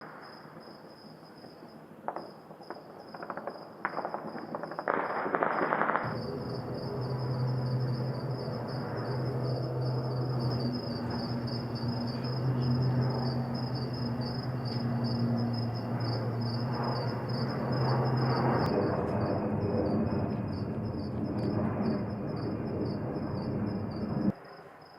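Celebratory gunfire and fireworks cracking into the air: scattered sharp shots at first, then a dense continuous crackle over a steady low hum, cutting off abruptly near the end. Insects chirp steadily throughout.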